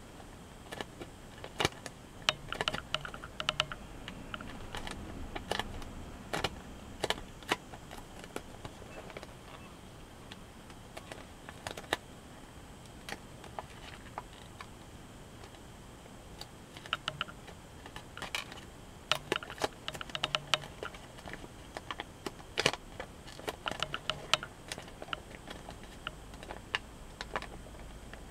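A sheet of origami paper being folded and creased by hand: crisp paper crackles and small ticks in clusters, with a quieter stretch in the middle.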